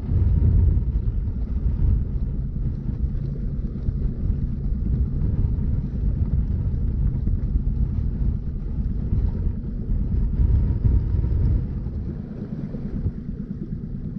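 Wind rumbling on the microphone aboard a small trolling boat, with the boat's motor running steadily underneath; the rumble eases a little near the end.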